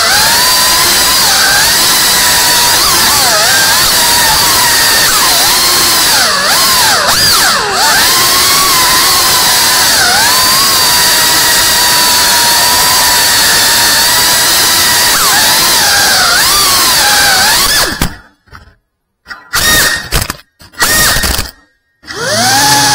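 FPV quadcopter's motors and propellers whining loudly, the pitch rising and falling as the throttle changes. In the last few seconds the sound cuts out and comes back several times.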